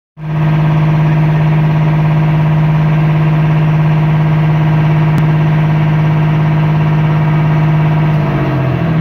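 Boat engine running with a loud, steady hum. Near the end its note drops and becomes unsteady.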